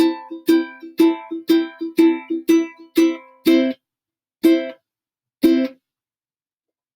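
Ukulele strummed chords with no voice, about two strums a second at a steady beat, then two last single strums about a second apart before it stops.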